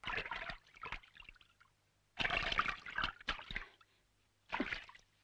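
Water being poured and splashing, in several short bursts with gaps between them; the longest runs through the middle.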